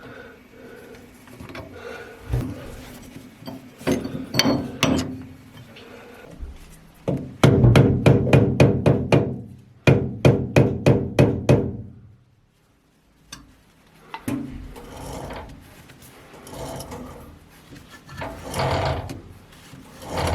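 Two runs of sharp, evenly spaced knocks, about three or four a second and loud, broken by a brief pause. Softer scraping and handling noises come before and after.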